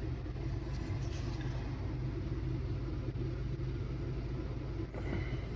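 A steady low machine hum, with a couple of faint handling clicks about a second in and near the end.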